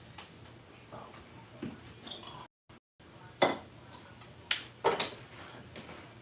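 Kitchen clatter of dishes and utensils being handled, with a few sharp knocks and clinks, three of them standing out in the second half. The sound cuts out completely for about half a second near the middle.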